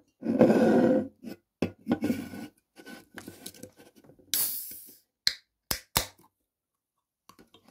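A glass mug and a drink can scraped and knocked on a wooden table, then the aluminium soda can's ring-pull opened with a hiss of carbonation about four seconds in, followed by a few sharp clicks.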